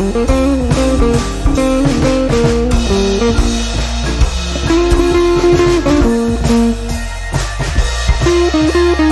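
Background music: a blues-rock track with guitar and a steady drum beat.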